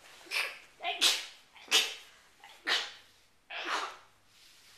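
A series of about five short, noisy puffs of breath close to the microphone, roughly one a second, each starting sharply and fading quickly.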